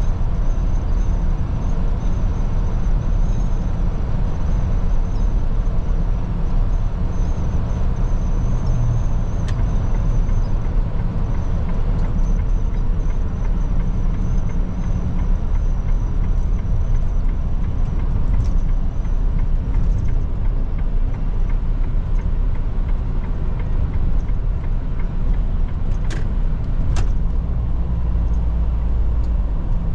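Mercedes-Benz Atego truck's diesel engine and tyre noise heard from inside the cab while driving: a steady low rumble with a faint high whine, and two short clicks near the end.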